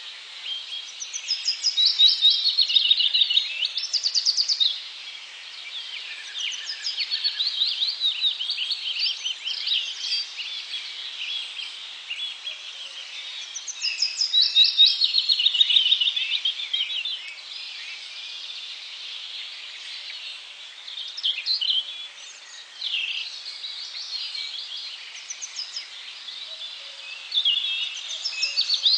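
Wild birds singing outdoors: bouts of rapid, high notes that run downward in pitch, loudest about a second in, again around the middle, and near the end, with scattered fainter calls in between over a steady background hiss.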